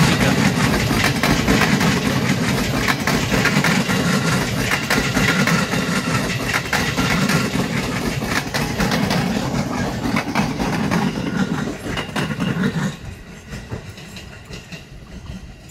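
Train passing close by on the tracks, wheels clacking over the rail joints; the sound drops away sharply about 13 seconds in as the end of the train goes by.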